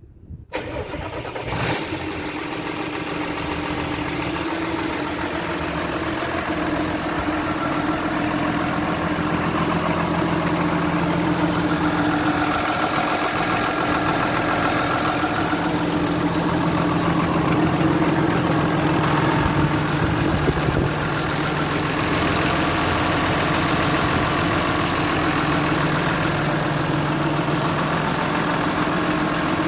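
John Deere 6830 Premium tractor's six-cylinder diesel engine starting about half a second in, then running at a steady idle with the hood raised.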